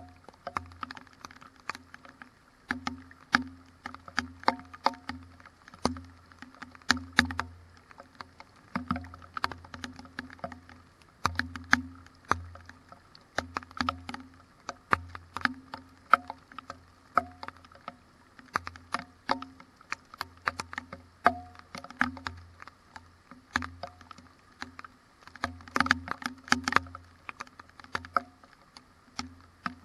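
Rain drops hitting the GoPro in a thunderstorm: irregular sharp ticks, several a second, over a low rumble that comes and goes in gusts.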